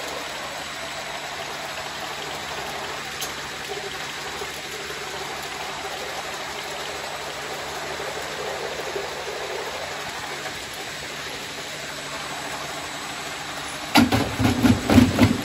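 Spiral conveyor running at a steady 90 feet per minute, its blue modular plastic belt carrying empty plastic cups: an even mechanical whir with a faint steady hum. Near the end a sudden, much louder clatter of knocks cuts in.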